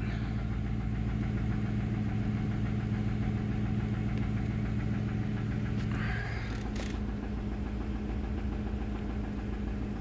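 Ford 5.4L Triton V8 idling steadily at about 1,000 rpm after a cold start, with the knocking noise the owner is trying to diagnose and wonders may be rod knock. The engine note changes slightly about six seconds in.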